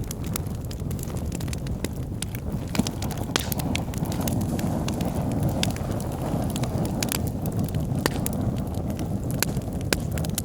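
Wood fire burning in a fireplace: a steady low rumble of flames with irregular sharp crackles and pops from the burning logs, a little fuller in the middle.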